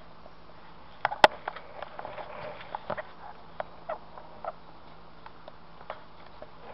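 Irregular light clicks and taps, one sharper click about a second in, then a quick run of smaller ones that thins out: handling noise.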